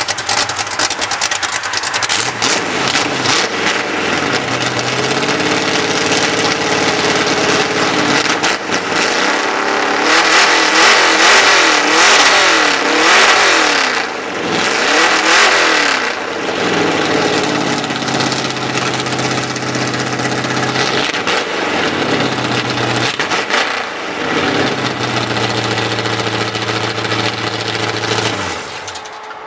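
Mud truck's engine running loudly. It is revved up and down several times in the middle and otherwise runs steadily, then cuts off sharply near the end.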